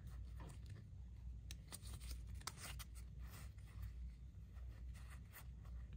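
Playing cards from a new Baobao Restaurant matcha boba tea deck being slid and fanned by hand, giving faint scattered clicks and rubs of card on card over a low steady hum.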